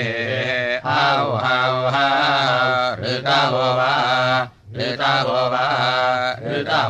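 A man chanting Samaveda gana of the Kauthuma recension in long, held melodic notes, with a short breath pause a little past halfway.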